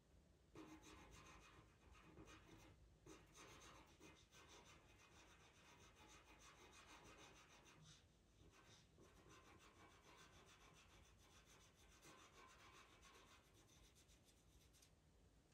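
Pastel pencil drawing on PastelMat paper: a faint, dry scratching of many small strokes, pausing briefly a few times.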